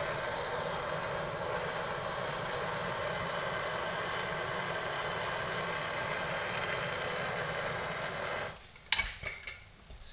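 Handheld propane torch burning with a steady hiss while it heats a magnesium chainsaw crankcase half to expand its bearing bore. The flame cuts off about eight and a half seconds in, followed by a few knocks as the torch is set down.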